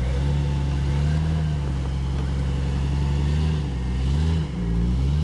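Off-road vehicle's engine running steadily under load during a recovery pull, its pitch dipping and then rising again about four seconds in.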